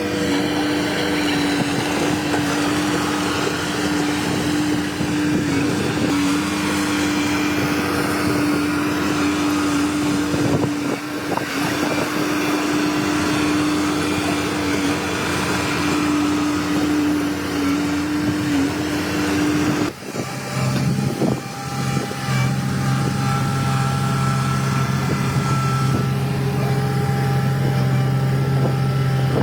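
Bulldozer diesel engines running steadily under load, a constant drone. About twenty seconds in, the pitch drops abruptly to a lower steady note.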